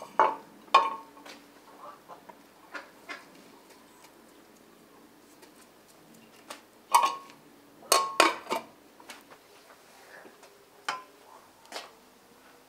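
Metal lid of a large cooking pot being lifted off and set back on, clanking against the rim with a short ringing: two knocks near the start, lighter taps in between, and a cluster of four clanks about seven to eight and a half seconds in.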